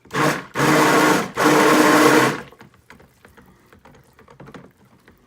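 Stick blender run in three short pulses in soap batter, the last about a second long, then switched off.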